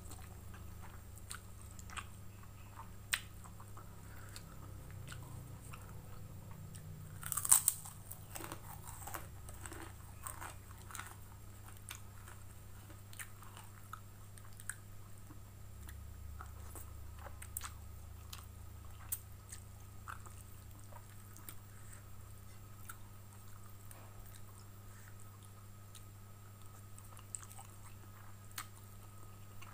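Close-miked eating of fried instant noodles with chopsticks: chewing, slurping and crisp crunching bites scattered throughout, the loudest a sharp crunch about seven and a half seconds in. A steady low hum runs underneath.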